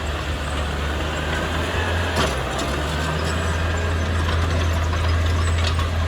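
Heavy diesel engine of earthmoving equipment running steadily with a deep drone, and a single sharp clank about two seconds in.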